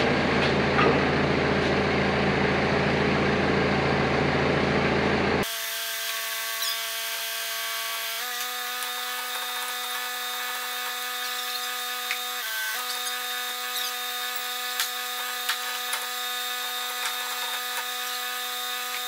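A forklift engine runs steadily with a low hum. After an abrupt cut it gives way to a quieter steady machine whine of several tones that steps up in pitch about eight seconds in and dips briefly a few seconds later.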